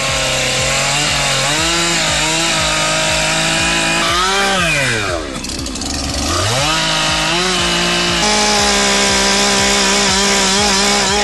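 Chainsaw engine running at high revs, dropping to idle about halfway through, then revving back up and holding a steady high pitch.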